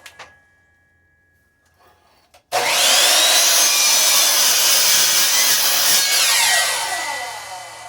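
A 10-inch compound miter saw starting suddenly about two and a half seconds in, its motor whining up in pitch, then running loud and steady while the blade cuts through a piece of firewood. About six seconds in the trigger is released, and the whine falls as the blade spins down.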